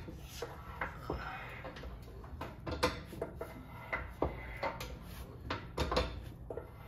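Hydraulic floor jack being pumped by its handle to raise a car: irregular metallic clicks and clanks, a few a second, with a couple of louder knocks.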